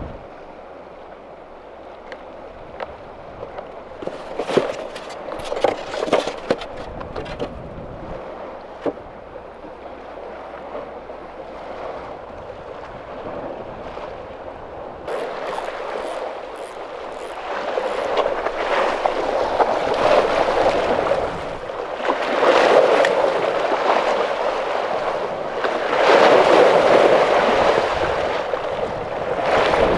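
Sea waves washing and splashing against the rocks of a breakwater, growing louder in several surges from about halfway through. A few light clicks in the first half.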